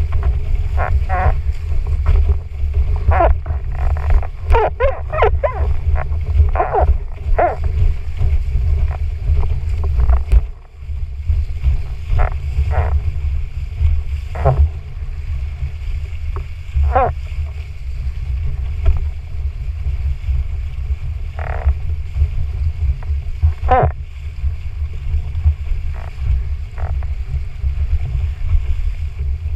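Wind buffeting the action-camera microphone on a windsurfing foil rig under sail, a loud low rumble throughout, with irregular short splashes of water spray and chop against the board and rig.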